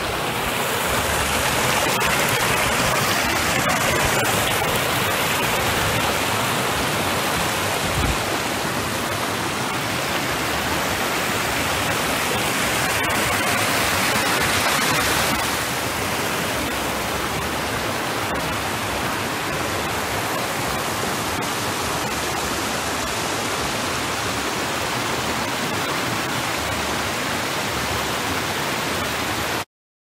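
Shallow rocky stream rushing and splashing over stones, a steady loud rush of water. The level dips slightly about halfway, and the sound cuts off abruptly just before the end.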